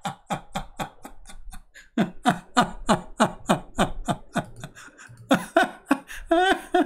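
A man laughing hard, a long run of short falling 'ha' sounds about three a second, with a brief break about two seconds in and a few drawn-out voiced sounds near the end.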